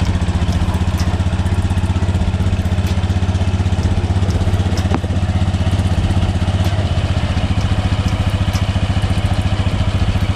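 Honda Beat FI scooter's single-cylinder engine idling steadily, its drive belt and pulleys running exposed with the CVT cover off.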